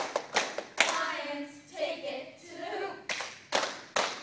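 A cheerleading squad clapping in unison, three sharp claps in quick succession near the start and three more near the end, with the group chanting a cheer between them.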